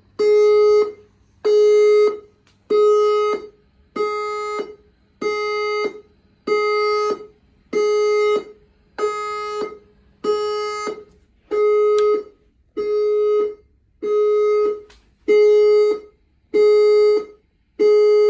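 Building fire alarm sounding: a loud horn-like tone pulsing in blasts just under a second long, a little less than one a second, with short gaps between.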